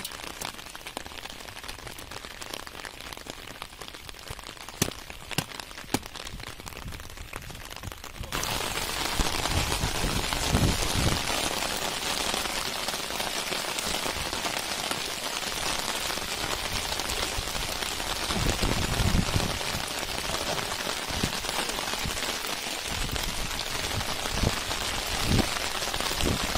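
Rain falling on the water of a flooded rice field, a steady patter with scattered sharp drop ticks. About eight seconds in it becomes suddenly louder and denser, with a few low thuds now and then.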